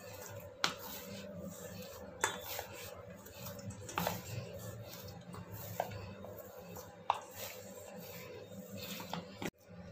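Dough being kneaded by hand in a stainless steel bowl, with the bowl knocking and clinking about six times, over a steady low hum.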